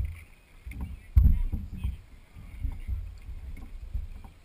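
Paddling sounds of a racing canoe: water slapping and paddle strokes picked up as irregular low thuds through the hull-mounted camera, the loudest just over a second in.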